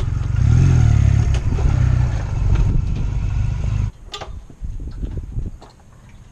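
Honda Rebel motorcycle running under way, engine and wind noise loud on the rider's microphone. About four seconds in the sound drops away suddenly, leaving a quieter stretch with a few light clicks.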